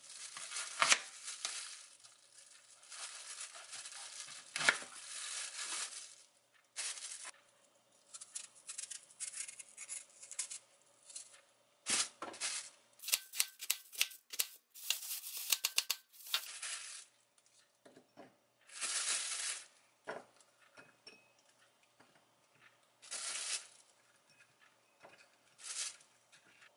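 Knife cutting through a raw apple held in the hand, a series of crisp cuts with a run of quick chops near the middle, mixed with plastic sheeting crinkling as the pieces are handled.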